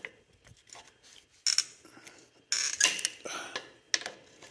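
Adjustable wrench clinking and scraping against a hydraulic fitting's nut while a loose, leaking connection is tightened: a series of sharp metal clicks, with a louder scraping rattle about two and a half seconds in.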